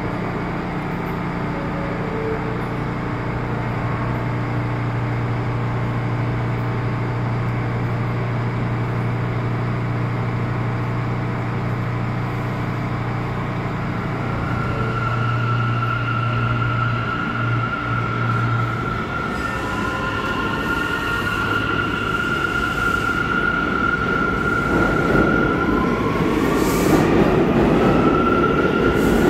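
R179 subway train standing at the platform with a steady low hum, then pulling out: its traction motors set up whining tones from about halfway through, some sweeping upward, and a rumble of wheels on rail grows louder near the end.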